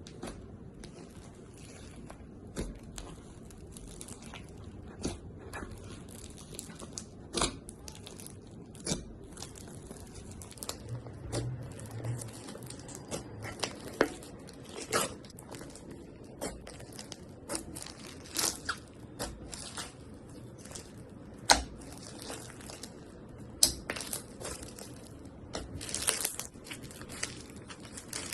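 Slime being squeezed and worked by hand, giving irregular sticky pops and crackles, some sharply louder than the rest.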